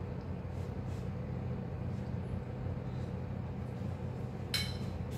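A steady low hum runs throughout. A single clink of a metal fork against a ceramic plate comes about four and a half seconds in.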